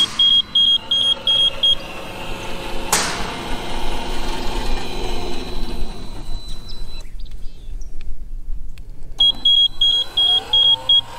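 Ghost Controls automatic swing-gate opener cycling: a rapid run of high electronic warning beeps, about four a second, then the opener's linear actuator arm motor running with a hum that shifts in pitch as it drives the tube gate. Another burst of beeps comes near the end, as the motor starts up again with a rising whine.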